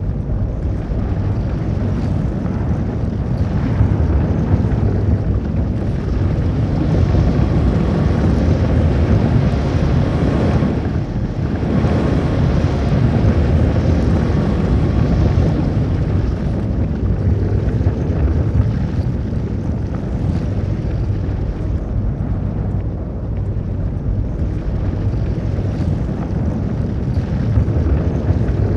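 Tornado sound effect: loud, continuous rushing wind with a deep low rumble, steady throughout.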